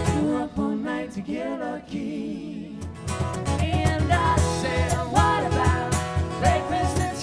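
Live acoustic trio playing: strummed acoustic guitar, cajon beats and singing. The cajon drops out for a couple of seconds near the start under a held, wavering sung note, then the full band comes back in with singing.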